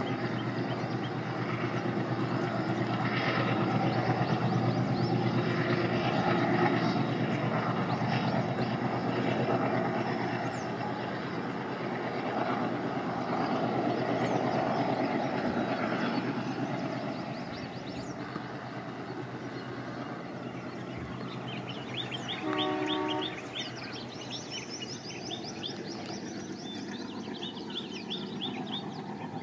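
Distant Indian Railways ALCO diesel locomotive hauling a passenger train, its engine running with a steady drone over the rumble of the coaches; it grows quieter after about 17 seconds. A short horn blast sounds about three-quarters of the way through.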